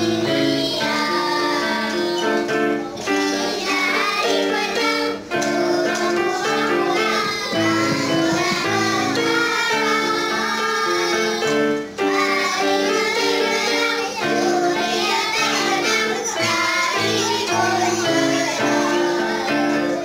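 A group of young girls singing a song together to electronic keyboard accompaniment.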